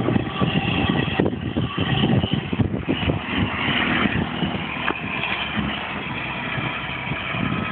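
Heavy diesel truck engine running as a tractor unit with a tipper semi-trailer drives away, an irregular low rumble that eases a little in the second half.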